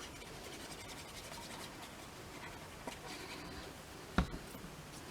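Faint scratching and rustling of paper being handled and pressed down while gluing backing paper onto a card, with a small click near three seconds in and a single louder knock about four seconds in.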